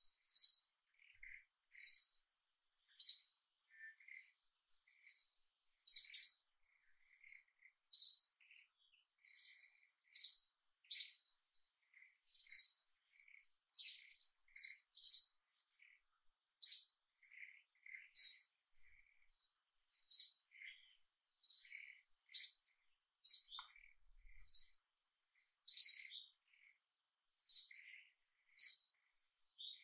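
A bird chirping: short, high chirps repeated about once a second, over a faint steady high-pitched tone.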